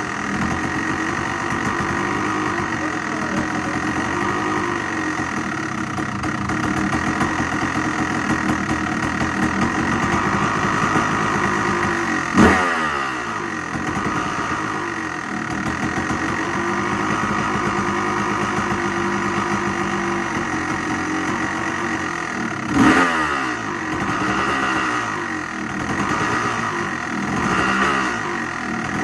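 2003 Honda CR250R's 250cc two-stroke single idling unevenly on a freshly fitted Lectron carburetor, blipped to a sharp rev about twelve seconds in and again about twenty-three seconds in, the revs falling back to idle each time, with a smaller blip near the end. The rider reckons the idle probably just needs a little adjusting.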